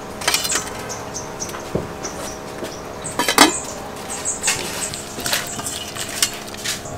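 Metal cookware clinking and clattering: a colander set down on a metal plate at the start, then an aluminium pot lid lifted off with one loud clank about three seconds in, followed by lighter knocks as lemongrass is tipped from a plate into the pot.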